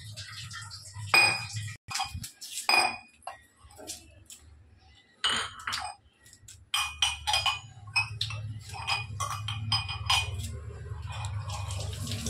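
Steel kitchen utensils clinking and knocking: a series of sharp metallic clinks, scattered at first and then coming quickly one after another in the second half, over a low steady hum.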